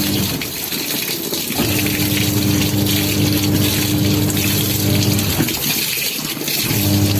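Water gushing from a pipe into a semi-automatic washing machine's wash tub. The wash motor hums under it in runs of a few seconds, with a short pause about a second in and another after about five seconds, as the wash cycle starts and stops.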